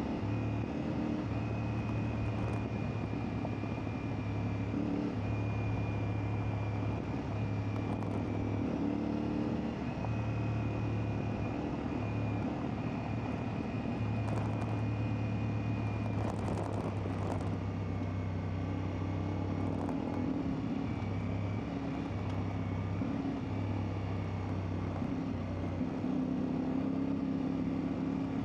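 CfMoto 450MT's parallel-twin engine running as the bike is ridden, at fairly steady revs, with the throttle coming on and easing off every second or two.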